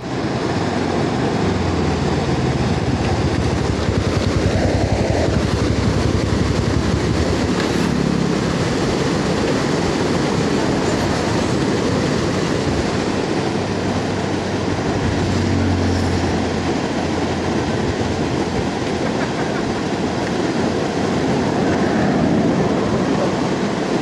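Muddy river water rushing through the gaps of broken concrete slabs: a steady, loud rush of churning whitewater.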